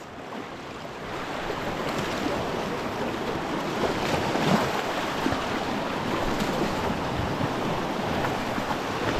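Waves washing and breaking over a rocky shoreline in a steady rush of surf.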